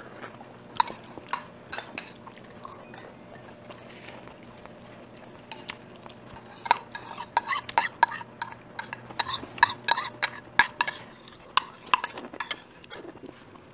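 Cutlery clinking and scraping against tableware while someone eats dumpling soup. A few scattered clinks come first, then quick, frequent clinks from about halfway through.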